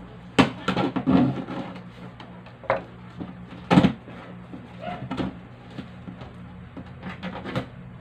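Cardboard box being opened with a knife: packing tape sliced and cardboard flaps pulled apart, a run of sharp scrapes and rips. The loudest comes a little under four seconds in.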